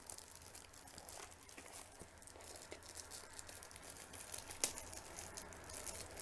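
Clear plastic bag wrapping a new calculator crinkling faintly as fingers pick at it and peel it open, in small irregular crackles. One sharper crackle comes about three-quarters of the way through.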